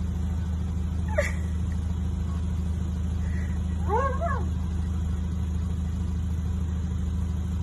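Car engine idling, a steady low hum heard from inside the cabin. A brief high-pitched call breaks over it about four seconds in.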